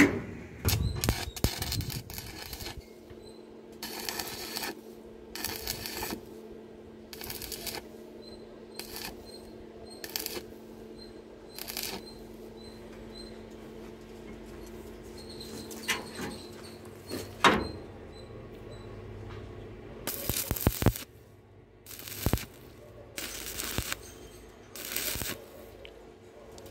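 Stick (arc) welding: steel strips tack-welded to a frame, the arc crackling in repeated short bursts each under a second long, with a faint steady hum between them.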